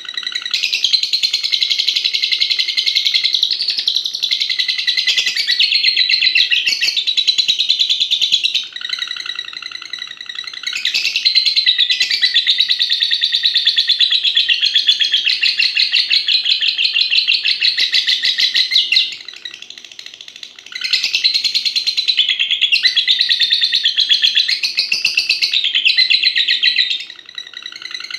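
Lovebird singing long, rapid, unbroken chattering trills (ngekek). It sings in three long phrases of roughly eight to ten seconds each, split by brief pauses. These drawn-out phrases are the long-duration song prized in lovebird song contests.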